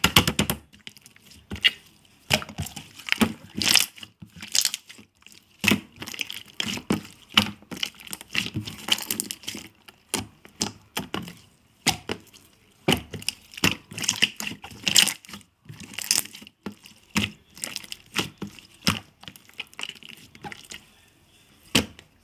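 Soft, fluffy yellow slime being squeezed and worked by hand, giving irregular sticky crackles and pops in quick clusters with short pauses between.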